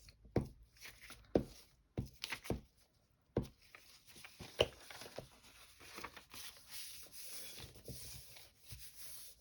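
Sheets of paper being handled and glued together: several sharp taps in the first few seconds, then soft continuous rustling and rubbing.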